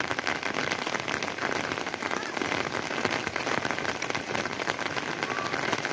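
Steady rain falling, with many separate drops striking close by in a dense, even stream.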